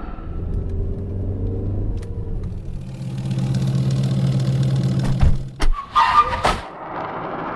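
Sound effects: a steady, low engine-like drone that gets louder about three seconds in, then several sharp hits and a short bright burst near the end, trailing into a noisy rush.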